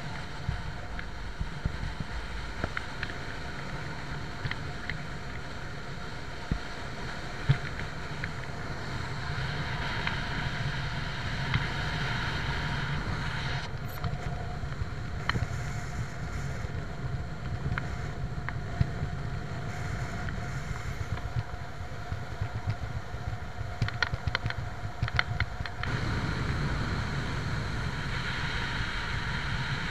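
Steady wind and road noise of a van driving along a highway, heard from a camera mounted on the outside of the vehicle, with scattered light ticks. The tone of the noise changes abruptly about halfway through and again near the end.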